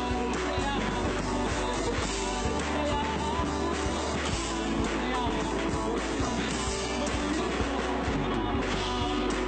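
Live band playing rock-style music, with a drummer working a full drum kit and cymbals under the other instruments.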